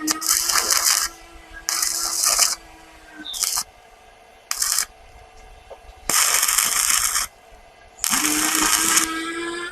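A small electric motor spins up with a rising hum and runs in spells, stopping about three seconds in and spinning up again near the end. Over it come about six loud, harsh bursts of hissing, grinding noise, each under a second long.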